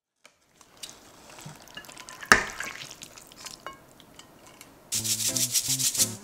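Kitchen cooking sounds: a utensil scraping and stirring in a pan, with one sharp knock a little over two seconds in. Background music with a steady beat comes in near the end.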